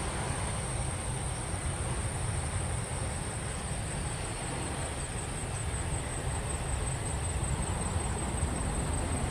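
Boeing 737 airliner's jet engines rumbling steadily as it lands and rolls out along the runway, with a steady high insect trill behind it.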